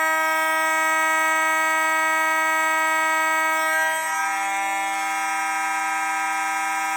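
Fire alarm horns on a Potter PFC-4064 panel's notification circuits (a Federal Signal 450D and Simplex horns) sounding together on continuous, set off by the panel's drill button. The loud, steady tone has no pulses. About four seconds in, its pitch shifts slightly and it gets a little quieter.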